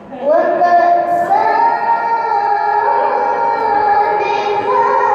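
A teenage girl's voice reciting the Quran in the melodic tilawah style through a microphone. She sings a long, unbroken phrase in a high register: she glides up into a held note and then climbs in steps to higher sustained notes.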